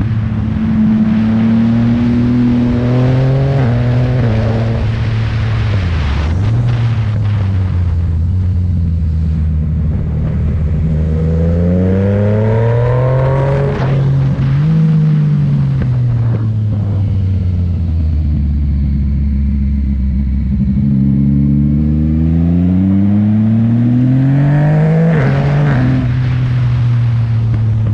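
Yamaha MT-09's inline three-cylinder engine through an M4 aftermarket exhaust, revving up and down as the bike is ridden. Its pitch climbs steeply about halfway through and again near the end, with falling stretches in between.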